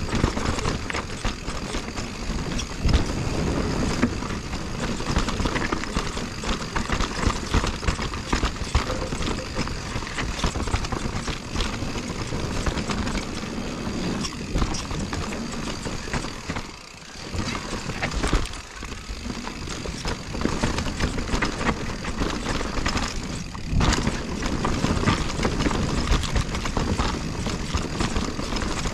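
2021 Giant Reign Advanced Pro 29 enduro mountain bike descending a steep dirt trail: a steady rush of tyres on loam, with the chain, frame and suspension clattering over roots and bumps. There is a short, quieter lull a little past halfway.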